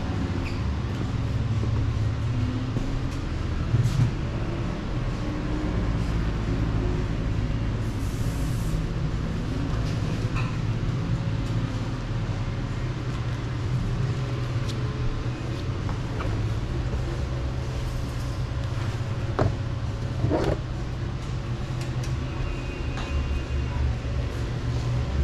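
A car engine running at speed on a race track, with a steady low drone whose pitch steps now and then, over road and wind noise.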